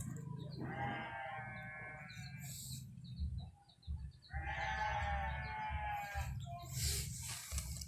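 A farm animal calling: two long, drawn-out calls of about two seconds each, a couple of seconds apart, over a steady low rumble. A short rustle comes near the end.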